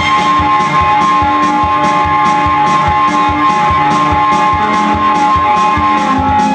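Electronic keyboard music: long sustained notes over a steady beat.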